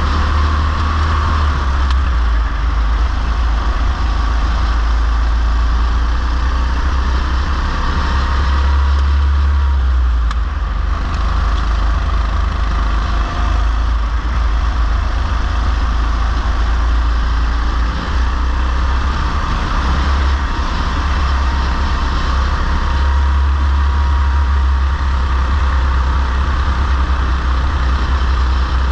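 Go-kart engine running steadily at racing speed on a track, heard from an onboard camera on the kart, with a strong deep rumble beneath it.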